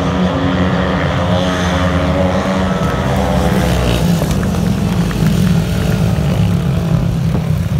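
Speedway motorcycles' 500 cc single-cylinder methanol engines running loudly together as the riders take the chequered flag, the engine notes rising and falling over the first few seconds.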